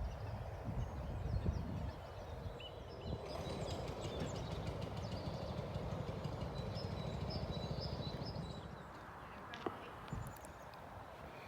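Outdoor ambience: small birds chirping over a low rumble of background noise, with one sharp click about ten seconds in.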